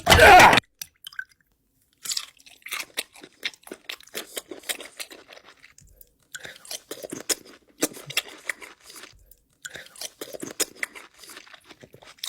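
A person chewing crunchy food close to the microphone: many irregular sharp crunches, after a short loud voice-like sound at the very start.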